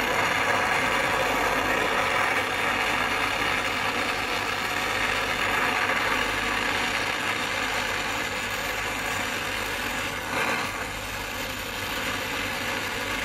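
Gas brazing torch flame hissing steadily while it heats the brazed discharge-pipe joint on an air conditioner compressor, softening the braze so the pipe can be pulled free.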